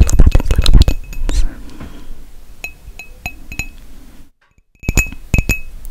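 Fingernails tapping on a ceramic mug held close to the microphone. A quick flurry of taps comes first, then slower single clinks that each ring briefly. Just past the middle there is a half-second drop to silence.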